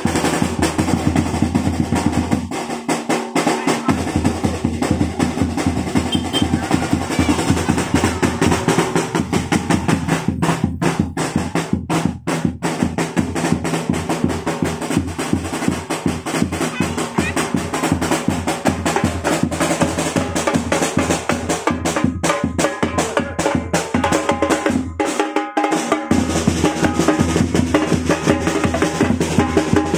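Drum-heavy music with a fast snare-and-bass-drum beat and drum rolls, accompanying majorettes' baton dancing. The deep bass drops out briefly twice, near the start and near the end.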